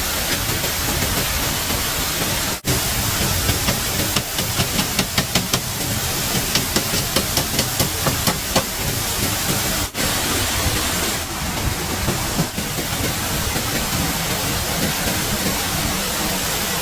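Steady rushing noise, with a run of light, quick taps from about four to nine seconds in and two brief dropouts.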